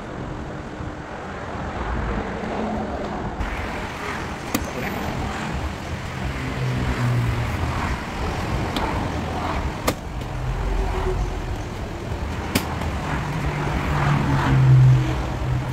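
Steady traffic and garage background noise, with a few sharp clicks as a plastic pry tool works the Audi A4's door-panel trim loose.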